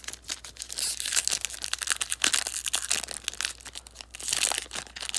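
Foil wrapper of a 2008 Upper Deck football card pack crinkling and crackling as it is handled and torn open.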